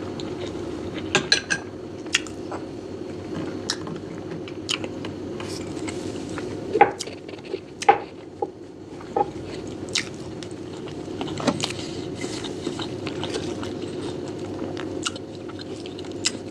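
Close-miked eating: a utensil clicking and scraping against a plate, with chewing of barberry rice and chicken. The clicks come at uneven intervals, the loudest about seven and eight seconds in, over a steady low hum.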